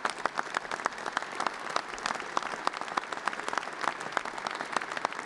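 A group of people applauding, many hand claps overlapping in a dense, steady patter.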